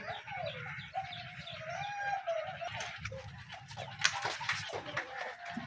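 Birds calling, with domestic chickens among them: a wavering call in the first couple of seconds, then scattered chirps and a few sharp clicks, over a low steady rumble.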